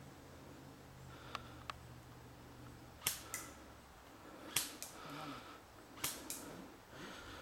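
Airsoft guns firing in double taps: three pairs of sharp cracks about a second and a half apart, after two faint clicks.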